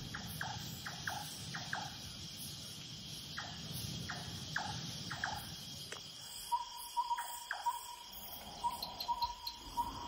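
Night chorus of crickets and other insects trilling steadily, with short chirps coming about every half second. From about six and a half seconds in, brief clipped notes repeat in irregular runs.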